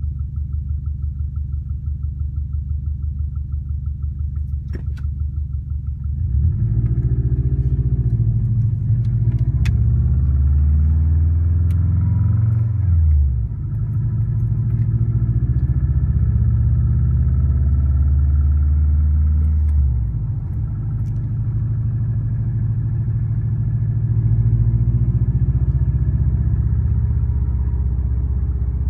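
Subaru WRX's turbocharged EJ205 flat-four idling with a fast, even tick, then revved from about six seconds in, pitch rising and falling, held up until about twenty seconds in and settling back. The noise the owner first took for piston slap turned out to be an exhaust leak from a cracked up-pipe flange.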